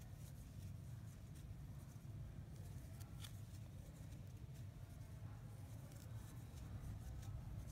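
Faint scratchy rustling and small ticks of a crochet hook pulling yarn through stitches, over a steady low hum.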